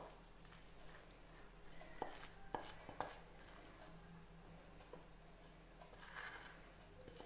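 Wooden spatula scraping thick ghee-and-gram-flour Mysore pak mixture out of a steel pan into a steel tray, faint and sticky, with a few light knocks of the spatula against the pan about two to three seconds in.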